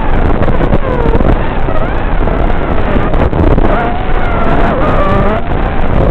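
Racing quadcopter's RS2205 2300KV brushless motors and propellers whining, the pitch rising and falling with the throttle. The sound is over a steady rush of noise and cuts off sharply in the treble, as if carried over the quad's analog video link.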